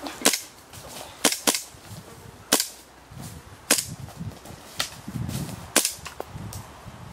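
Airsoft gas blowback pistol, a Tokyo Marui Colt M1911A1, firing about seven sharp popping shots at uneven intervals.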